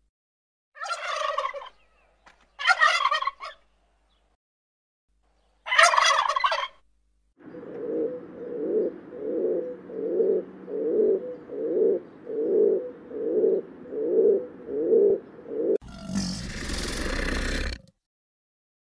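Animal calls: three short, loud calls, then a run of about ten rhythmic pulsing calls a little under a second apart, then a harsh, loud two-second sound near the end.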